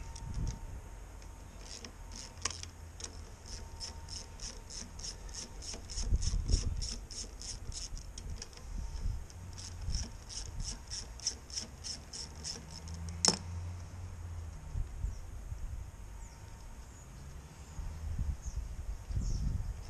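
Ratchet wrench with a 10 mm socket clicking in an even run of about three clicks a second while undoing screws, then one sharp click after it stops.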